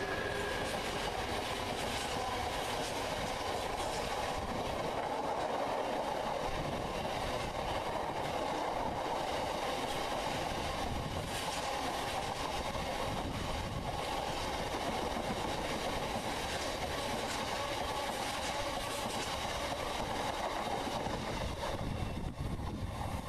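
A long rake of bogie hopper wagons on a GBRf freight train rolling past. It makes a steady rumble and hum of steel wheels on rail, with occasional clicks as the wheels cross the rail joints. The sound eases near the end as the last wagon goes by.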